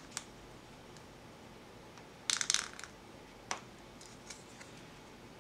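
Nail-stamping scraper dragged across a metal stamping plate to clear off excess polish: one short scratchy scrape about two seconds in, with a few light clicks before and after.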